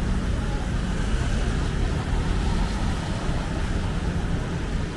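Steady city street traffic noise: a constant low rumble of passing vehicles with an even hiss over it.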